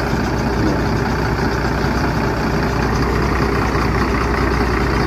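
Mercedes-Benz OH1526 bus's rear-mounted diesel engine running steadily at low speed as the bus pulls slowly away.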